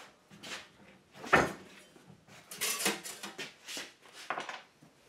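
Scattered knocks and clatter of metal pieces and clamps being handled while a small strip of steel and an aluminium rod are clamped into a sheet-metal brake, with one sharper knock about a second and a half in.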